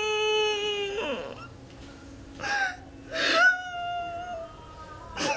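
A young woman crying. A long drawn-out wail falls slightly in pitch and breaks off about a second in, followed by sobbing catches of breath, a second, higher held wail, and a sharp sobbing breath near the end.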